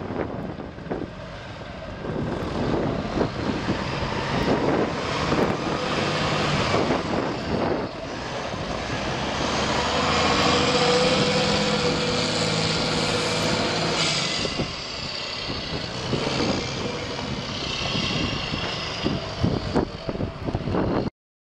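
Kenworth feed truck's diesel engine running as the truck drives by, loudest as it passes close alongside and then fading as it pulls away.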